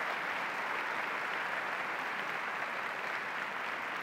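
A large theatre audience applauding steadily, the even clatter of many hands clapping together.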